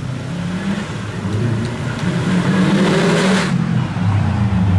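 Subaru Impreza rally car's flat-four engine revving hard as the car approaches, growing louder; the revs climb past the middle and then drop off sharply as the driver lifts.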